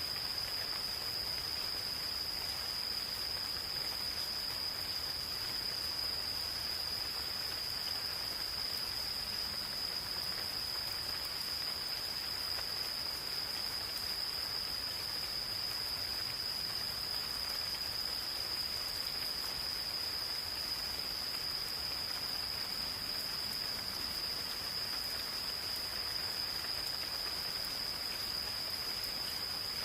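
Gentle rain falling in a forest, an even hiss with light drop ticks, under a steady, unbroken high-pitched insect trill.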